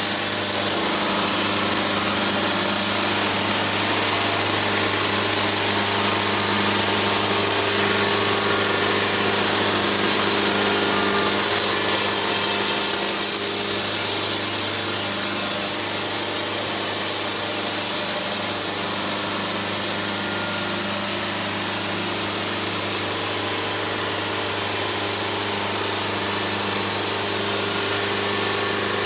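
Portable sawmill running steadily, its engine humming as the blade cuts through an oak log under a constant hiss of sawing. The level drops slightly a little past halfway.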